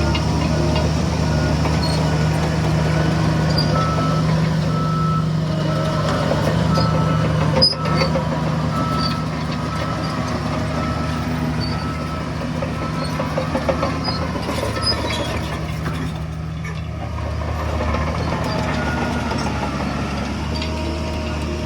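Heavy diesel earthmoving machinery running steadily, with a reversing alarm giving a long series of evenly spaced beeps. There is one sharp knock about eight seconds in.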